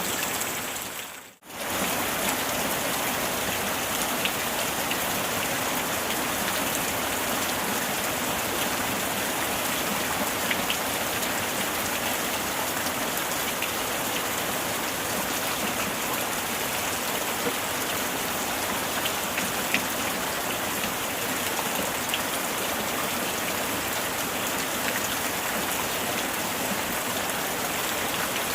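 Steady heavy rain, a dense hiss with scattered individual drop ticks; the sound dips briefly almost to silence about a second in, then returns at the same level.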